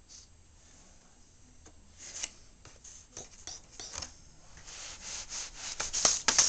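Scratching and scrabbling of a cat's claws on a plastic laundry basket as it paws around inside it. It starts with a few scattered scrapes about two seconds in and grows into a busy, louder run of scratches near the end.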